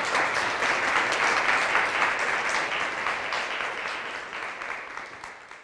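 Audience applauding at the end of a talk: dense clapping that holds steady, then gradually dies down over the last couple of seconds.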